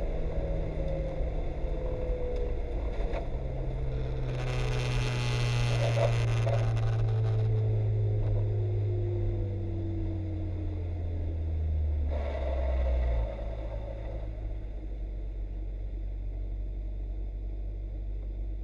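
Mazda Miata race car's four-cylinder engine heard from inside the cockpit, its pitch falling steadily as the car slows, with a burst of hiss about four seconds in. About thirteen seconds in, the engine drops to a low, steady idle.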